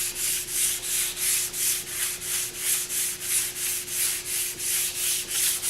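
A fine-grit whetstone being rubbed back and forth on sandpaper to flatten it: a steady rhythmic gritty scraping of about three strokes a second.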